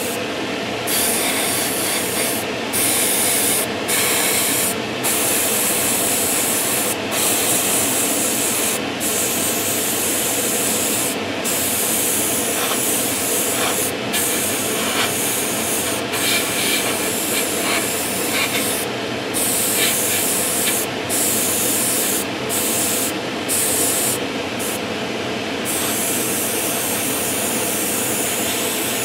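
Airbrush spraying thinned paint, hissing in short bursts of a second or two with brief breaks as the trigger is worked, over a steady lower hiss.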